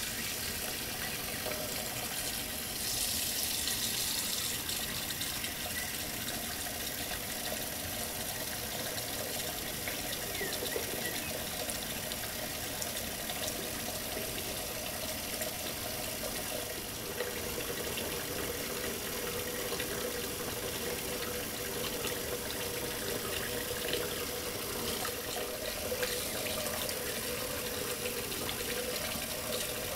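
Kitchen tap running steadily into a plastic bowl in a stainless-steel sink, filling it with water to rinse raw liver pieces.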